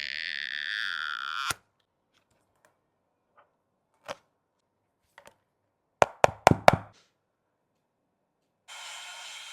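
A falling, sweeping sound cuts off abruptly. After a pause comes a single click, then four sharp clicks in quick succession, within under a second. Near the end a steady hiss begins.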